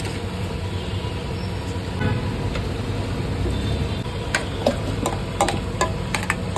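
Steady low background rumble, with several sharp metallic clinks about four to six seconds in, from a steel spoon and steel bowl as mutton is packed into a clay handi.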